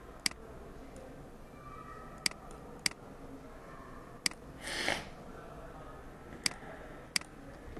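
Computer mouse clicking: six sharp single clicks spaced irregularly, with a short breathy hiss a little before the fifth second.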